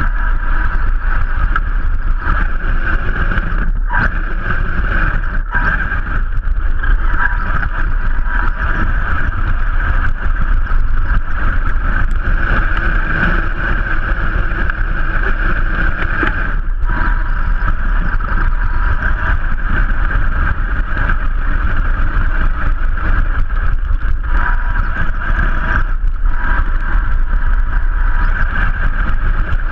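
Vaterra Twin Hammers RC rock racer's electric motor and drivetrain running steadily with a constant whine, along with rumble from the tyres on dirt, picked up by a camera mounted on the truck. The noise drops away briefly a few times.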